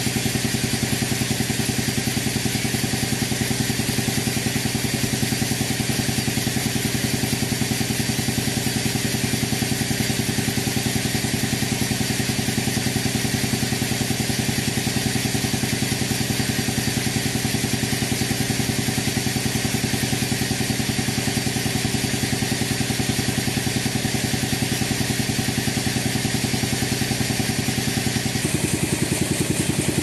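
Band sawmill's engine running steadily without cutting, an even mechanical hum with a fine regular pulse.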